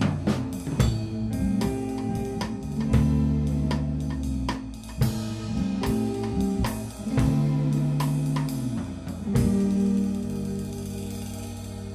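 Instrumental band of guitar, bass and drum kit playing, with snare, hi-hat and cymbal hits over held bass notes. About nine and a half seconds in, a final hit and the chord is left to ring and fade.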